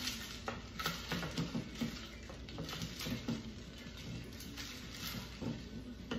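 Wooden spoon stirring juice, soda and cut citrus fruit in a large glass jar: liquid sloshing, with irregular knocks as the spoon and fruit hit the glass.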